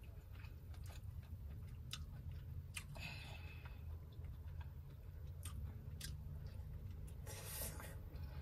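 A person chewing and picking through a bowl of boiled seafood by hand: scattered soft clicks and crunches, with two brief crackles about three seconds in and near the end, over a steady low hum.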